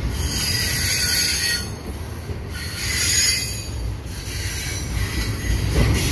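Double-stack freight cars rolling past with a low rumble, their wheels squealing against the rails on the curve in loud, high-pitched waves that swell and fade every second or two.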